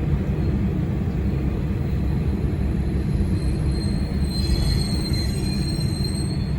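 JR Shikoku KiHa 40/47 diesel railcar running with a steady low rumble, heard from on board. A thin high wheel squeal sets in about three and a half seconds in and grows stronger as the train slows into Tokushima.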